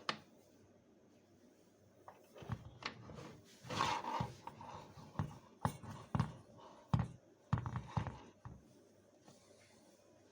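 A run of irregular clicks, taps and short rustles of things being handled, starting about two seconds in and stopping about two seconds before the end.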